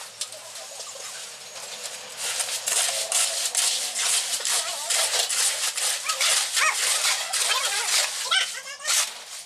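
Shovels scraping and turning a gravel, sand and cement mix by hand on the ground, with many short rough scrapes. A dog whines with high wavering cries several times in the second half.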